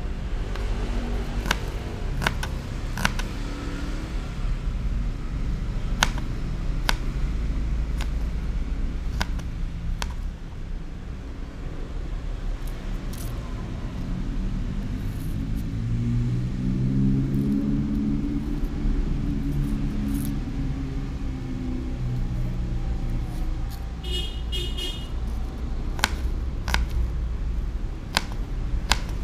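Small kitchen knife cutting shallots against a plastic cutting board, giving scattered sharp clicks, over a steady low rumble of traffic. A motor vehicle's hum swells and fades about halfway through.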